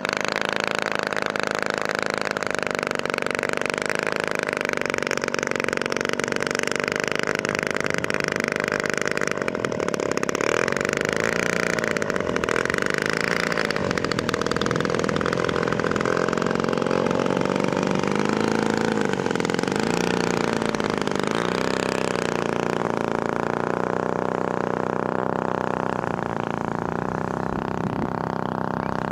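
3W 55 single-cylinder two-stroke petrol engine of a giant-scale model Spitfire running at taxi power, its pitch rising and falling with throttle changes between about ten and twenty seconds in.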